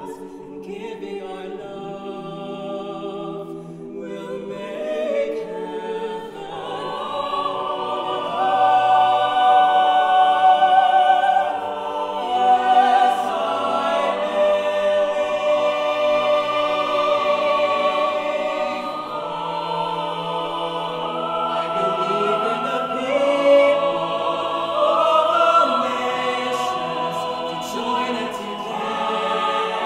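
Mixed choir of men's and women's voices singing sustained chords in full harmony, swelling louder about seven seconds in.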